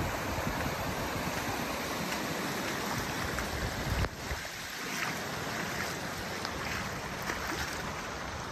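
Floodwater rushing and churning across a track and through a field gate: a steady rush of running water, easing slightly about four seconds in.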